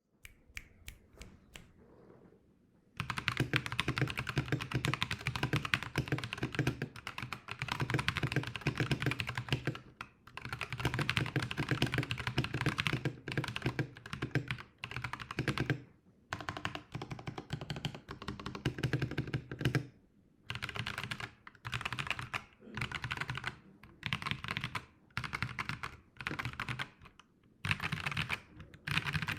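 Computer keyboard being typed on: a few separate key taps at first, then fast, dense key clatter in bursts of several seconds, broken by short pauses, with shorter bursts toward the end.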